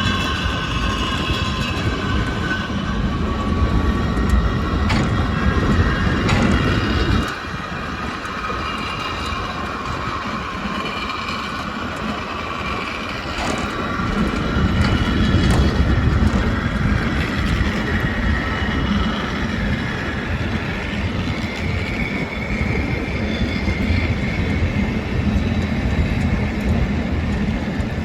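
Water-balanced funicular car running down its cliff track: a continuous rumble of wheels on the rails with high, wavering squeal tones. The rumble drops off suddenly about seven seconds in and builds up again about halfway through.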